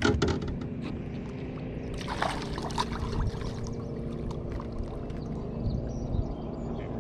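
A hooked bass splashing and thrashing at the surface beside the boat as it is landed by hand: a sharp splash right at the start and another bout of splashing about two to three seconds in, over a steady low hum.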